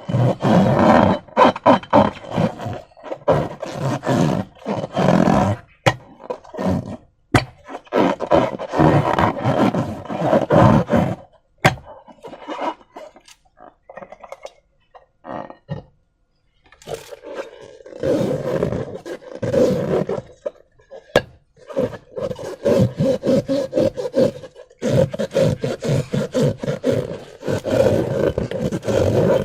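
Slime and rubber balloons being squeezed and handled, giving dense, irregular squelching and rubbing sounds that ease off for a few seconds about halfway through.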